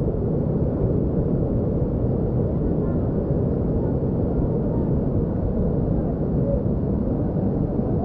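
Waterfall cascading into a pool: a steady rush of water, heavy in the low end and without a break. The water is running rough, which the guide puts down to a broken hydroelectric dam upstream.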